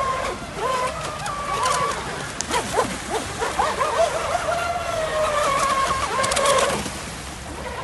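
RC boat's motor whining, its pitch sliding up and down as the throttle changes, over the hiss of the hull cutting through water. There are short bursts of splashing spray about two seconds in and again near the end, and the whine falls away shortly before the end.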